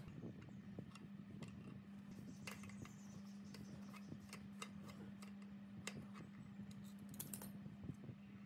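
Light, irregular metallic clicks and taps of a wrench and hammer on the steel shaft and bearing housing of a tape cutting machine, over a steady low hum.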